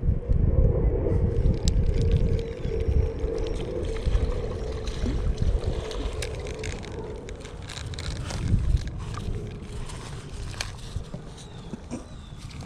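Wind buffeting the microphone, heaviest in the first half, with a steady hum for the first few seconds. Scattered sharp clicks and ticks run through it as a spinning reel is cranked to bring a hooked fish in to the bank.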